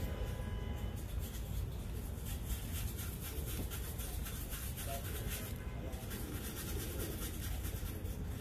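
Rapid back-and-forth abrasive scrubbing on the steel shell of a car muffler, the surface around a rust hole being cleaned up for a patch, with a brief pause about six seconds in. A steady low rumble runs underneath.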